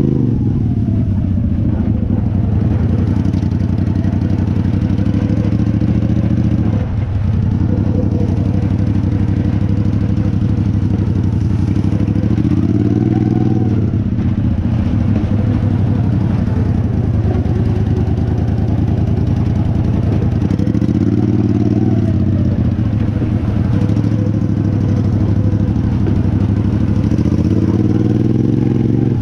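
Small engine of a modified racing riding lawnmower running hard as the mower is driven, its pitch mostly steady with gentle rises and falls and a brief dip about seven seconds in.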